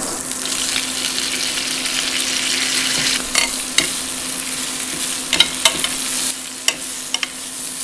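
Butter sizzling in a hot grill pan, with a steady high hiss. Spinach leaves go in partway through, and sharp pops and crackles follow as they hit the hot fat.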